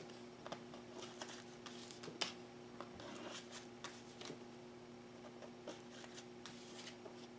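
Faint rustling and light taps of tarot cards being handled and gathered into the deck, with one slightly louder tap about two seconds in. A faint steady hum runs underneath.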